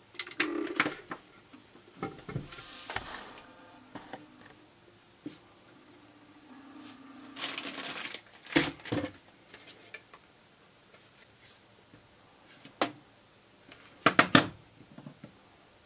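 Clicks and knocks as the power plug is pushed into the PTZ conference camera. Then the camera's pan-tilt motors whine in steady tones that step in pitch as the head swings through its power-on self-test. Near the end comes a quick cluster of sharp clicks.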